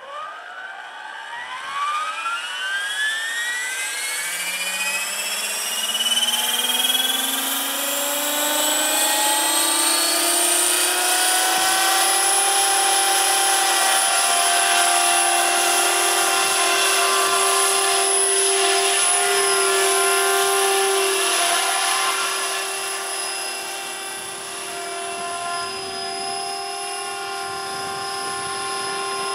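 Electric RC model helicopter (T-Rex 500 base, four-blade rotor head, brushless Turnigy motor) spooling up: a motor and gear whine rising in pitch over the first several seconds, then holding a steady high whine with rotor whir as it lifts off and flies. The sound dips a little about three quarters of the way in.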